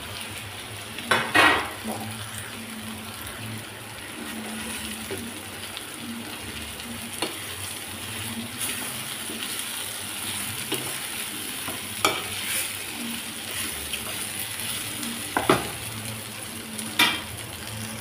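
Chicken curry sizzling in a metal pot as a steel spoon stirs it, with a steady frying hiss and scattered scrapes and knocks of the spoon against the pot, the loudest about a second in and another near the end.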